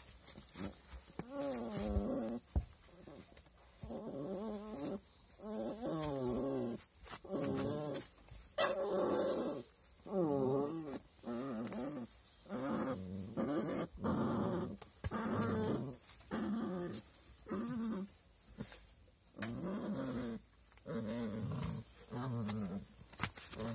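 Puppies growling as they play-fight, a long series of drawn-out, wavering growls, each about a second long, following one another with short gaps.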